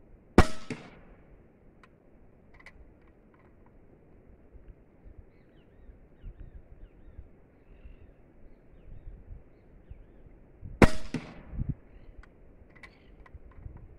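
Two shots from an AEA HP Varmint 6.35 mm (.25 calibre) PCP air rifle firing 40-grain slugs, about ten seconds apart. Each is a sharp crack with a short tail, and a few fainter knocks follow the second shot. Faint bird chirps come in between.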